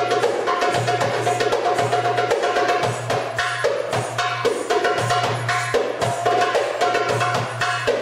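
Live Arabic tabla (goblet drum) solo: fast, dense rolls of sharp ringing strokes over a deep bass note that comes back again and again.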